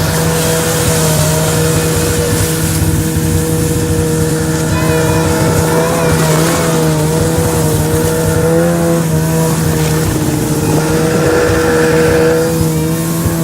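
Snowmobile engine running at a steady speed, its pitch wavering slightly, with a steady hiss over it.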